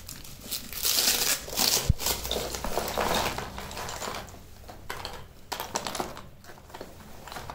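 Plastic wrapping crinkling as it is pulled off a bundle of grey chalk sticks, then the hard sticks clicking against each other and the cardboard as they are dropped into a box and picked through. The clicking thins out toward the end.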